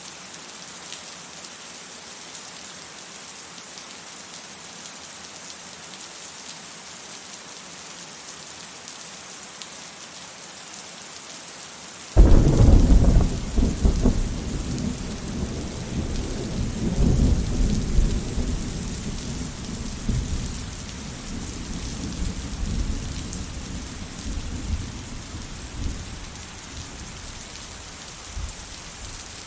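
Steady rain hiss. About twelve seconds in, thunder cracks suddenly and then rolls as a long low rumble that fades away over the following fifteen seconds or so.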